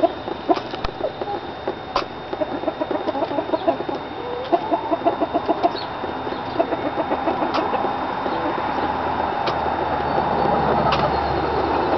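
Hens clucking while feeding, in quick runs of short notes, with a few sharp clicks among them.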